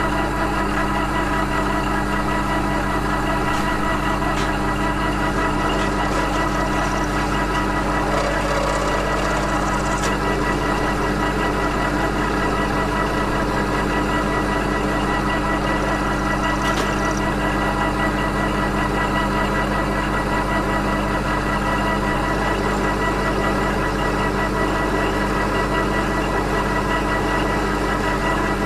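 Vertical milling machine running steadily: a constant motor and drive hum made of several steady tones.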